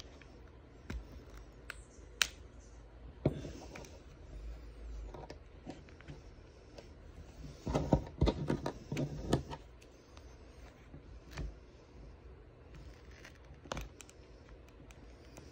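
Small clicks and scrapes of hands working a suction-cup opening tool at the edge of an iPhone 13's screen, with a quick run of louder clicks about eight seconds in.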